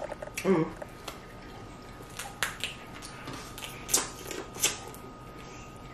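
Eating and handling a seafood boil of snow crab legs: a scatter of sharp clicks and wet smacks, about half a dozen at irregular spacing, with a brief vocal sound about half a second in.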